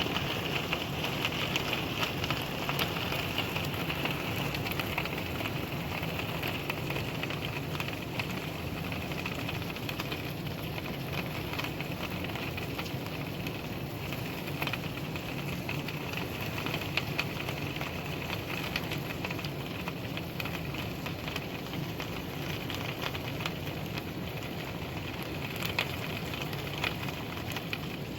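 Steady rain falling, a dense even hiss with many small drop ticks spattering on a surface.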